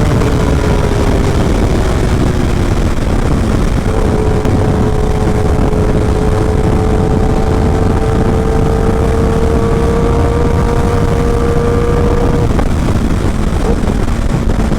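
Kawasaki Ninja ZX-10R's inline-four through a short SC Project exhaust, ridden at speed under heavy wind rush. The engine note sags over the first few seconds, then climbs slowly and steadily, and drops away about twelve seconds in.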